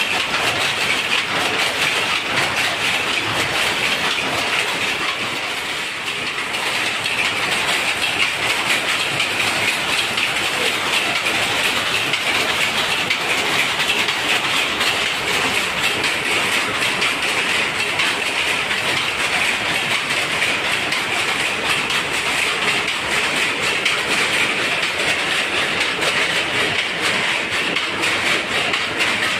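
Jacquard power looms running: a loud, steady, fast mechanical clatter.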